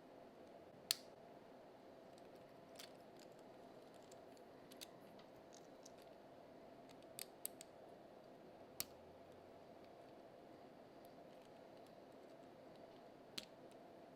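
A few light, sharp clicks of hard plastic, spaced irregularly over a faint steady hum, as the jointed plates of a 3D-printed print-in-place armadillo knock together while it is handled. The sharpest click is about a second in, with a quick pair of clicks around the middle.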